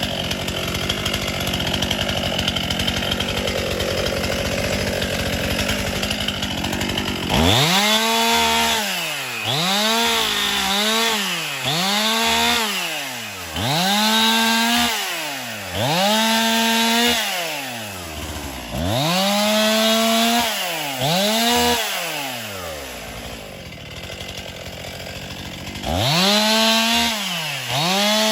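Chainsaw running steadily for about the first seven seconds, then throttled up and let back down again and again, about nine short revs with drops toward idle between them, typical of cutting through downed limbs.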